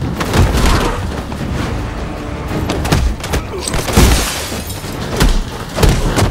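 Action-film fight sound effects over dramatic music: several hard punch and body-impact hits with low booms, and a heavy crash with glass shattering about four seconds in.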